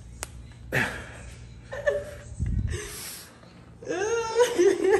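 Short breathy vocal sounds from a man, a low thud about two and a half seconds in, and a drawn-out wavering vocal sound near the end.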